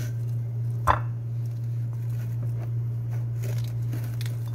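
Hands breaking apart a pomegranate and picking out its seeds: soft squishing and small crackles of rind and seeds, with one sharp snap about a second in. A steady low hum runs underneath.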